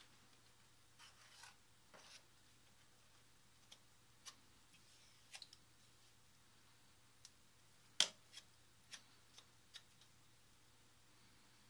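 Faint, scattered clicks and light scrapes of a spatula spreading pasty epoxy compound on the steel base of a milling machine, with one sharper click about eight seconds in.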